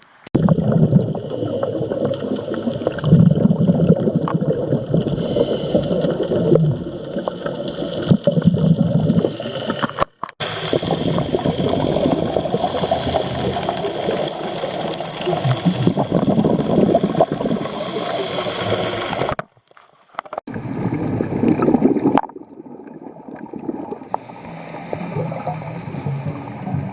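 Underwater bubbling and gurgling heard through a camera housing, typical of a scuba diver's exhaled regulator bubbles, surging and easing with brief cut-offs in between.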